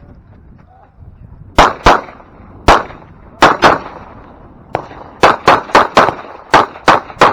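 Rapid pistol fire from a Glock in a competition stage: about a dozen sharp shots starting about a second and a half in, mostly in quick pairs with a run of four fast shots near the end, and one fainter report in the middle.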